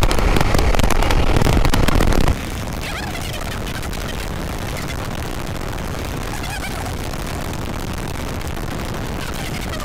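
Riding noise of a KTM Duke 390 motorcycle at speed on the rider's camera mic: loud wind rumble mixed with engine and road noise, which drops abruptly about two seconds in to a steady, quieter rush.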